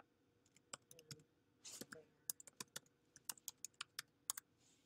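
Typing on a computer keyboard: a faint, uneven run of quick key clicks as a few words are typed, thickest through the middle stretch.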